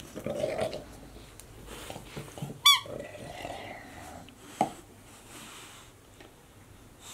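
An English bulldog mouthing and chewing a toy ball, with noisy breathing through its face pressed against the ball. There is one short high squeak about two and a half seconds in, and a sharp click just before five seconds.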